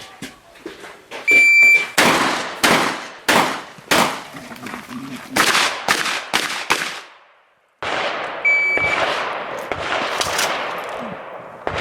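An electronic shot-timer beep starts an IPSC shotgun stage, followed by a rapid string of shotgun shots, roughly one every two-thirds of a second. After a brief break, a second timer beep sounds and another string of shots follows.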